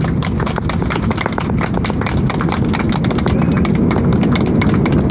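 Airliner cabin during landing: a steady low rumble with rapid, irregular clattering knocks throughout.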